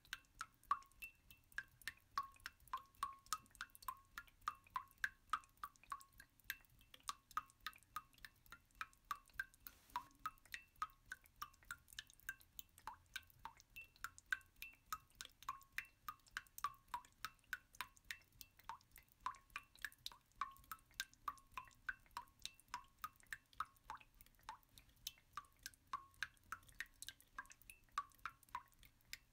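Soft water-drop plinks, about three or four a second in an uneven rhythm and at slightly varying pitches, going on without a break; an ambient drip sound track rather than anything from the cooking.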